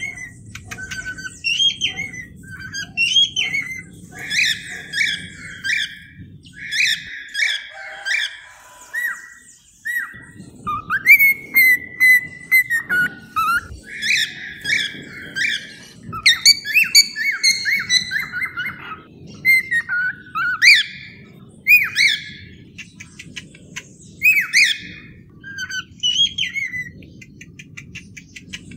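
Cockatiels calling: a busy string of short chirps and whistles, several of them rising in pitch. Low background noise sits underneath and drops out for a few seconds around a quarter of the way in.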